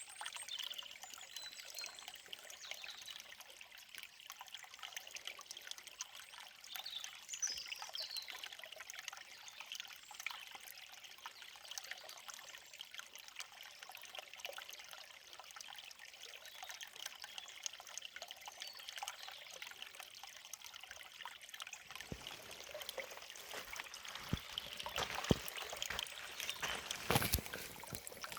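A small forest stream trickling and babbling over rocks, with a few short bird chirps about eight seconds in. The water grows louder and splashier in the last several seconds.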